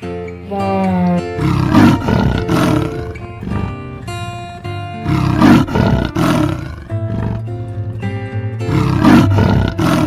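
A large animal giving three long, rough, loud calls a few seconds apart, over background music.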